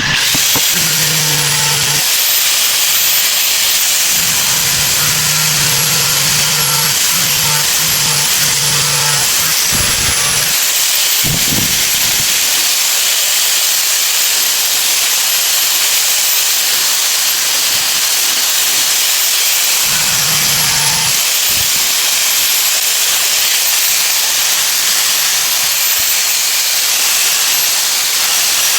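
Steady loud hissing noise that starts abruptly, with a faint low hum coming and going in stretches.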